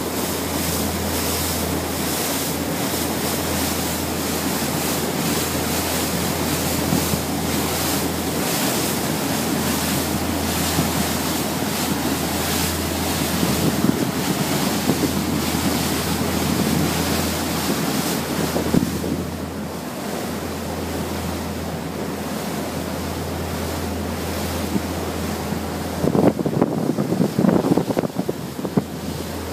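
Patrol gunboat under way: wind on the microphone and water rushing past the hull over a steady low drone of its engines. Near the end, the wind buffets the microphone in rapid, uneven gusts.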